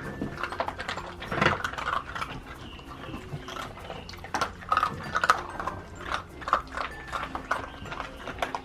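A litter of Siberian husky puppies eating dry kibble from a plastic dish: a steady run of quick crunches and clicks as they chew.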